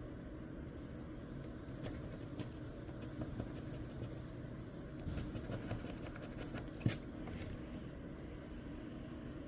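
Faint scratching as the coating is scraped off a crossword lottery scratch-off ticket, in short uneven strokes, with one sharper tap about seven seconds in.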